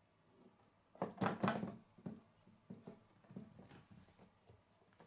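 Plastic K'nex parts clattering as the gymnast figure is spun around the high bar: a dense rattle of clicks and knocks about a second in, then scattered lighter clicks.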